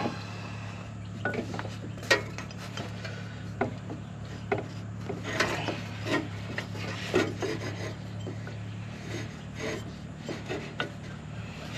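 Irregular rubbing and scraping with light knocks as a rubber V-belt is worked by hand around an excavator engine's pulleys, over a steady low hum.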